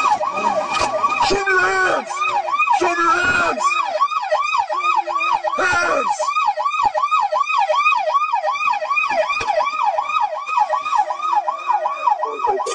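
Police car siren on a rapid yelp, its pitch sweeping up and down about three times a second, with a brief knock about six seconds in.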